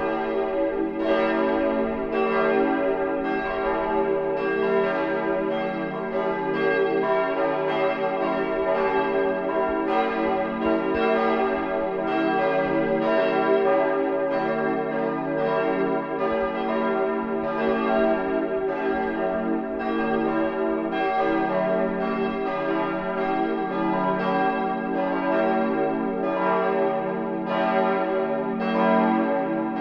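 Church bells in full peal, all the tower's bells ringing together to call to Sunday service. Several bells strike in an uneven, overlapping pattern, about once a second, and each ringing note carries on under the next strike.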